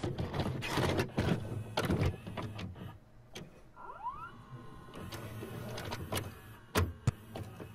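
Videocassette recorder mechanism: clunks and clicks as a tape is loaded, a short rising whine about four seconds in as the mechanism spins up to play, and two sharp clicks near the end.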